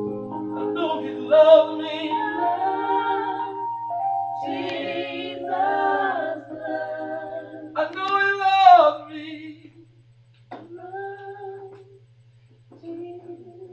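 Gospel vocal group singing in harmony with female voices leading, mostly unaccompanied; the loudest, highest phrase comes about eight seconds in, then shorter, softer phrases. A steady low electrical hum runs underneath.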